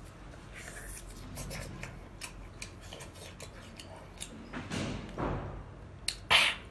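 Close-up eating sounds of cooked lobster claw meat being bitten, chewed and sucked: small wet clicks and smacks, with a longer sucking swell near the middle and a louder burst of mouth noise near the end.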